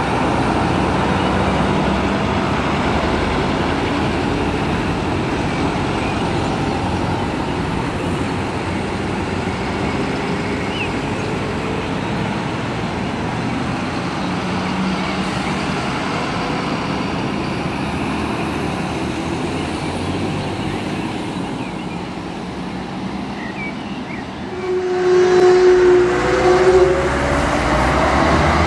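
Convoy of fire trucks driving past, diesel engines running under steady road and tyre noise. About 25 seconds in it gets louder as a heavy truck's engine revs up, with a brief steady tone.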